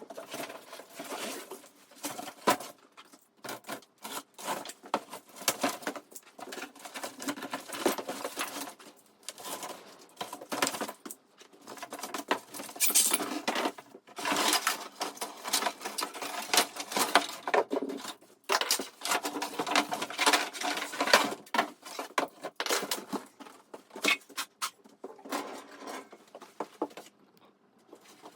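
Dense, irregular clicking, tapping and rustling of parts and packaging being handled during assembly.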